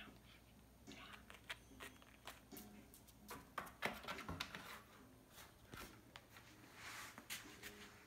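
Faint, scattered clicks and scratches of a white cockatoo's claws and beak on a rubber mat and cardboard as it walks into and moves about inside a cardboard box.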